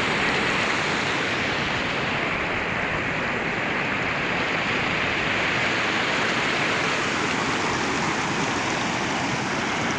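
Fast-flowing floodwater of a swollen river, rushing steadily.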